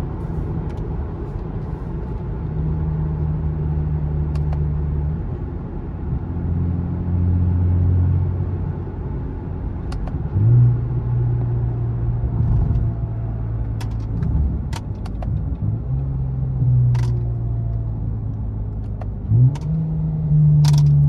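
Lexus car engine with an axle-back muffler delete, heard from inside the cabin while driving through downshifts. Its low droning exhaust note changes pitch in steps, with sharp jumps in revs about halfway through and again near the end.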